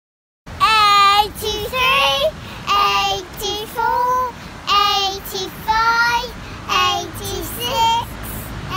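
Two young children singing together in short phrases with held notes, starting suddenly about half a second in.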